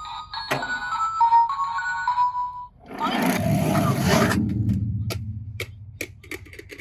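A short electronic tune of beeping tones, then a loud rushing rumble from toy minicars rolling down a plastic slide, fading over about two seconds. It ends in a string of sharp clicks as the cars clatter.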